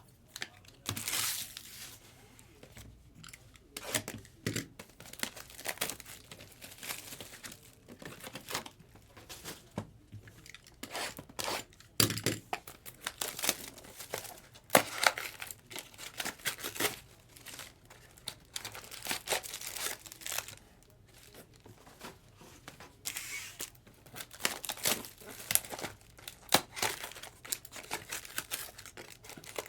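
Trading-card pack wrappers being torn open and crumpled, with cards handled in between: irregular tearing, crinkling and rustling with small sharp clicks.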